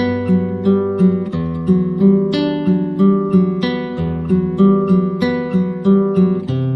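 Background music: an acoustic guitar picking a steady, even pattern of single notes, about three a second, through changing chords.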